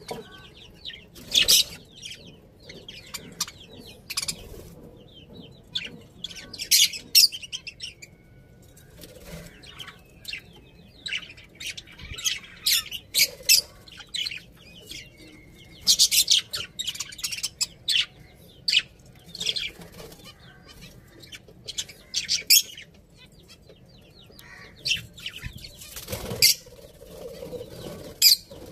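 Budgerigars chirping and chattering in quick, irregular bursts of high-pitched calls, with short pauses between.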